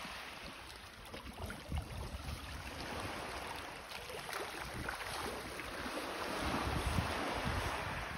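Sea water lapping and splashing softly around a dog swimming along, with gusts of wind rumbling on the microphone.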